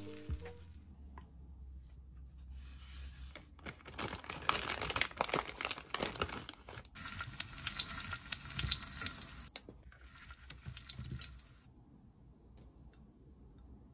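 Plastic food wrapper rustling and crinkling as it is handled, in a few loud stretches with short breaks, dying away near the end.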